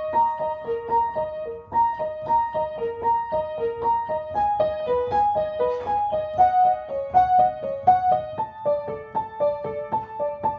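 A piano being played: a simple melody of single notes at an even pace, about three notes a second, moving back and forth between a few notes in the middle register.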